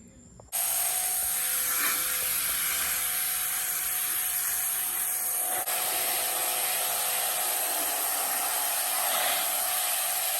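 Bauer 2300 pressure washer running and spraying a steady high-pressure jet of water. It starts abruptly about half a second in and holds a constant hiss with a steady motor hum under it.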